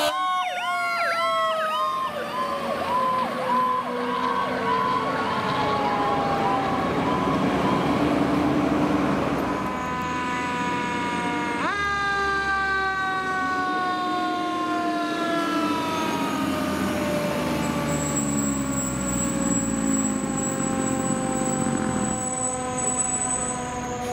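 Sirens of two Seagrave fire trucks responding past the listener: a fast yelp over the first few seconds, then a wail whose pitch slowly falls, rising sharply again about twelve seconds in and then winding slowly down. The trucks' engines run low underneath.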